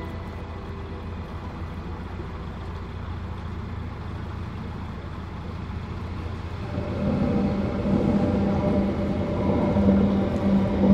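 Narrowboat's diesel engine running steadily with a low hum. About seven seconds in, a louder rumble with a steady hum sets in and stays.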